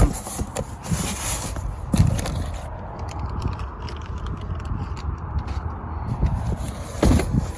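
A cardboard box being opened and its packing handled: scraping and crackling, with a sharp knock at the start and another about two seconds in.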